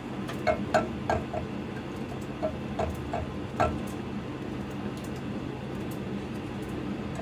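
A spoon stirring noodle soup in a saucepan, knocking and scraping against the pot in irregular clicks that thin out after about four seconds, over a steady low hum.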